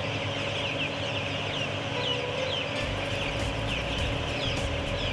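A large flock of young broiler chickens peeping constantly, many short high chirps overlapping, over a steady hum. A low rumble joins about three seconds in.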